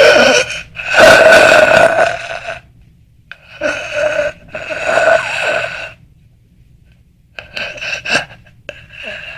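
Monster breathing sound effect: loud, rasping breaths in and out, about six in a row, some in close pairs, with short pauses between them.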